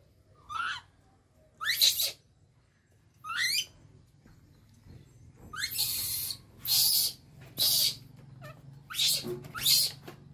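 Baby macaque screaming in distress at being left alone by its mother: about eight shrill calls, the first three rising squeals, the later ones harsher and louder screams coming closer together.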